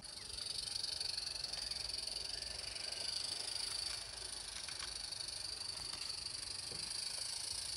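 Steady high hiss from a garden-scale live-steam locomotive running with its coaches, with a few faint clicks.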